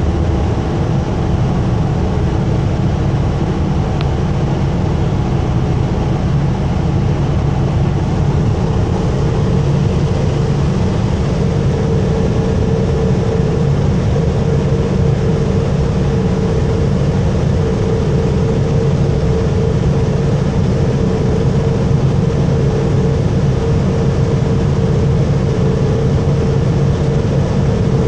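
Steady low rumble of a city bus's engine and cabin heard from inside, with a steady hum that grows stronger about ten seconds in.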